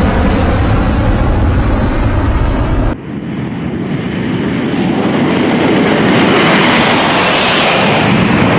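Loud aircraft engine noise with a sudden cut about three seconds in, then a rushing noise that builds to a peak near the end.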